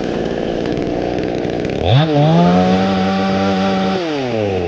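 A repaired electric power tool running under test: a steady rushing motor noise, with a whine that rises about two seconds in, holds steady, then falls away near the end.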